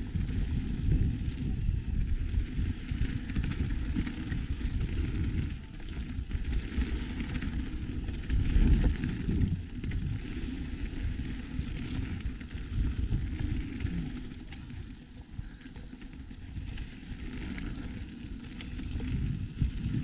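Mountain bike riding down a dirt forest trail: the tyres rumble and crackle over dirt and leaves, and the bike rattles over bumps.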